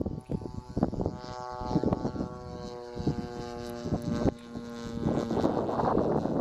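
Propeller airplane engine running with a steady pitch, with wind gusts popping on the microphone. A rushing noise swells about five seconds in.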